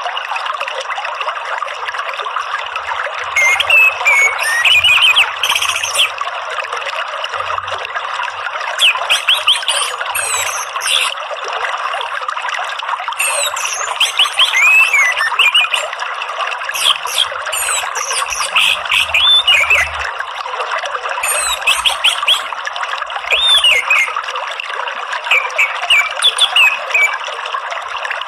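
Orange-headed thrush singing in short phrases of chirps, whistled up-and-down notes and rapid high twitters every few seconds, over a steady sound of running water.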